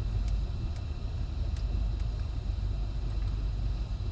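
Vehicle engine running steadily, heard as a low rumble.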